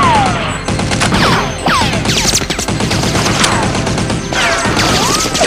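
Edited-in blaster sound effects: a rapid string of shots, many with a falling, whistling zap, over background music.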